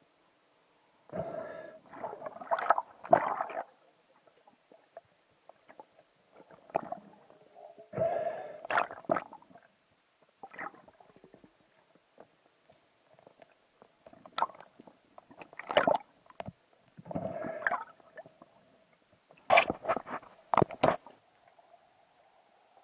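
Underwater handling noise as a speared fish is gripped and worked off the spear shaft: bursts of rough scraping and rustling, each about a second long, three times. Sharp clicks and knocks fall between them, with a cluster of three near the end. A faint steady hum runs underneath.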